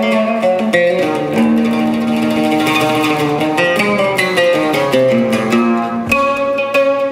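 Solo oud playing: a quick, continuous run of plucked notes with some held, ringing notes between them, and a sharp new attack about six seconds in.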